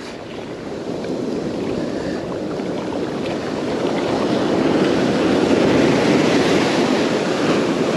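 Ocean surf washing up the beach, growing louder as a wave breaks in close around five to seven seconds in, with wind buffeting the microphone.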